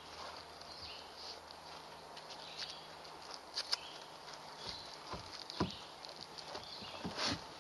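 Kayak paddling: water splashing and dripping from the paddle, with scattered sharp clicks and knocks, several louder ones in the second half.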